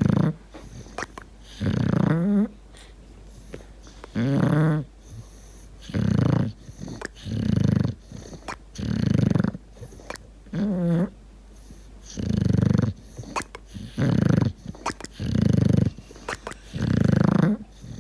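English bulldog snoring in deep sleep, about a dozen loud snores at a steady rhythm of one every second or two. Several of them break into a wavering, warbling "prrrp".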